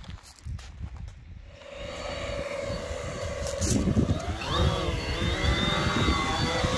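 Quadcopter fishing drone's electric motors and propellers starting up. A steady hum begins about two seconds in; about four seconds in the rotors spin up into a louder, wavering whine as the drone throttles up for takeoff.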